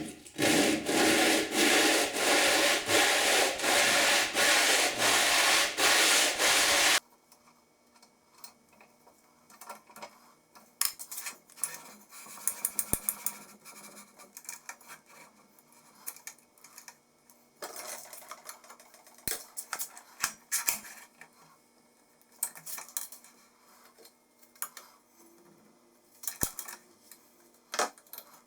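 A small metal part rubbed back and forth by hand against an abrasive to flatten and square it, with even strokes about twice a second that stop abruptly about seven seconds in. Then quieter, scattered light clicks and scrapes.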